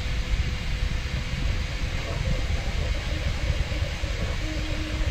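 3D printers running: a steady fan hiss over a low rumble, with faint wavering stepper motor tones coming in about two seconds in.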